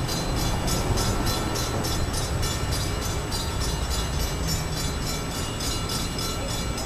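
SEPTA Silverliner V electric multiple-unit train approaching, a steady rumble with faint steady high tones and a rhythmic high-pitched pulsing about four times a second.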